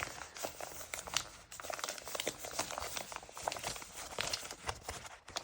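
Product packaging being handled and opened: irregular rustling, crinkling and small crackles as the contents of a small accessory box are unpacked.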